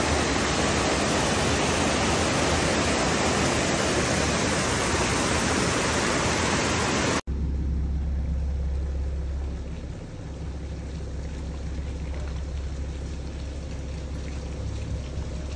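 Loud, steady rush of a muddy floodwater torrent pouring down a slope. It cuts off about seven seconds in, giving way to a quieter low rumble.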